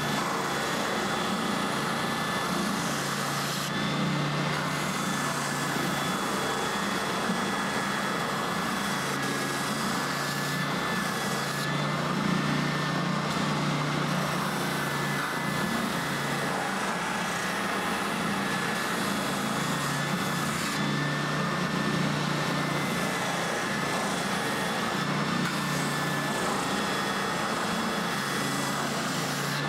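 Benchtop spindle sander running with a steady motor hum, a laminated wooden bandsaw-box piece held against its spinning sanding sleeve.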